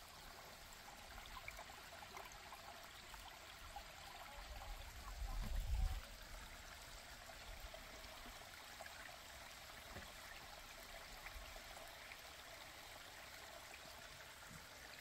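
A shallow creek, normally dry and now running after weeks of heavy rain, trickling and rushing softly over rocks in its bed. A brief low rumble comes about five seconds in.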